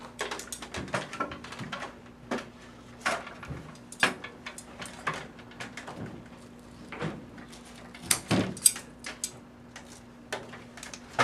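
Irregular clicks, knocks and fabric rustles as a blackout curtain and its ceiling track are handled and adjusted, with a louder cluster about eight seconds in, over a steady low hum.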